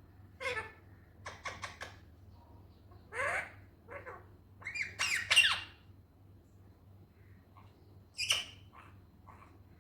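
Indian ringneck parrot giving a run of short, harsh calls and chatter in separate bursts, loudest about five seconds in, with a sharp call a little after eight seconds and a few soft, quick notes just after it.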